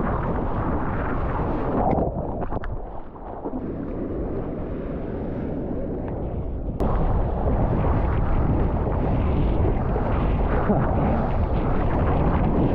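Ocean water rushing and splashing around a surfboard, with wind buffeting the board-level action camera's microphone into a steady rumbling hiss. It turns suddenly louder about seven seconds in.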